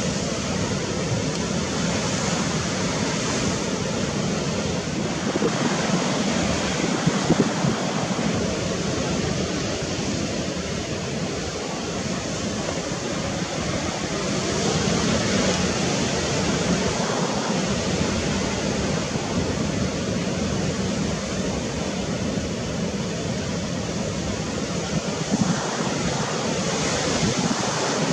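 Steady rushing noise of wind and sea surf, with wind buffeting the microphone.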